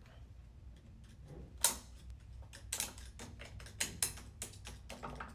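Irregular metallic clicks and clacks of the forward clutch pack's steel and friction plates against the drum and case as the pack is turned and worked into place in a Nissan RE0F09B CVT, lining up the clutch splines. The loudest click comes about one and a half seconds in, with a quicker run of clicks around the middle.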